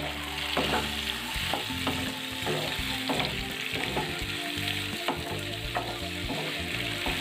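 Chicken and chopped tomatoes sizzling in hot oil in a pan while being stirred, the utensil scraping and knocking against the pan again and again.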